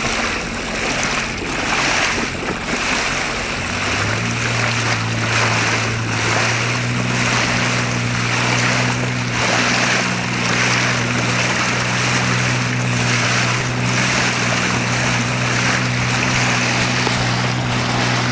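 Water rushing and splashing along a small boat's hull, with the boat's motor humming steadily. The engine hum comes in about four seconds in and strengthens a couple of seconds later as the boat gets under way.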